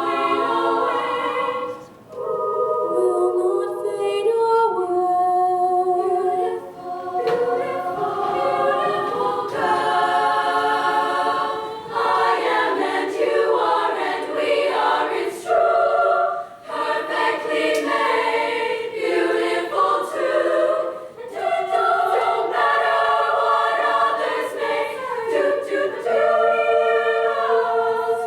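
Show choir singing in full harmony, chords shifting from phrase to phrase with brief breaks between some phrases.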